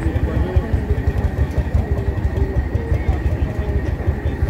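Vintage tractor engine running at a steady idle, a fast, even low thumping, with voices murmuring over it.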